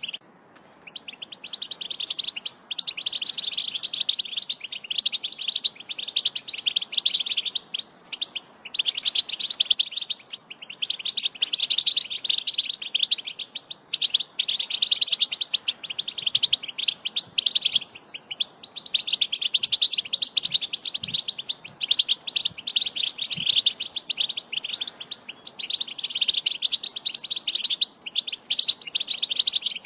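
European goldfinch song: a fast, continuous twittering and trilling, broken by a few brief pauses.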